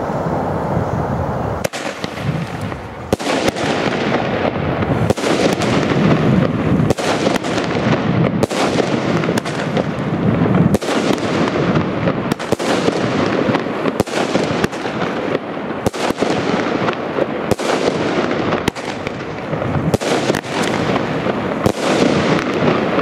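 Gaoo 'Blue Tail' 13-shot, 25 mm-calibre consumer firework battery firing: about a dozen sharp reports, one every 1.5 to 2 seconds, with a continuous rush of noise from the bursting effects between them.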